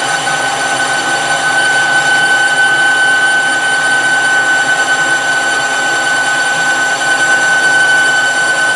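Metal lathe running under a boring cut, a boring bar taking a light pass inside a steel bar, with a steady whine over the machine noise.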